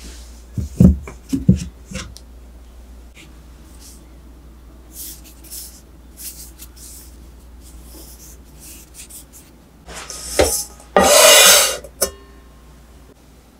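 Kitchen handling sounds: a few soft thumps about a second in, faint rustling of sweet potatoes being handled, then a knock and a loud scrape of about a second as a rice cooker's inner pot is set and slid onto a wooden trivet, ending in a click.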